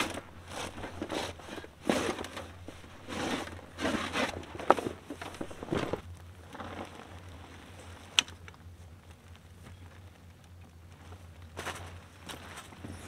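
Rooftop tent being opened: its fabric travel cover rustling and crinkling in bursts as it is pulled off and the tent is unfolded, with two sharp clicks along the way.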